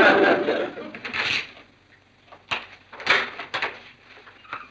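A front door being unlatched and opened: several sharp clicks and knocks of the latch and handle, following a brief loud burst of voices.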